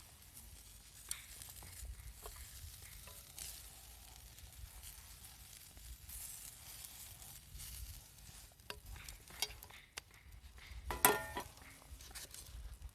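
Food sizzling on a thick steel griddle, with scattered clicks and scrapes of a cooking utensil. A louder ringing metallic clatter comes about eleven seconds in.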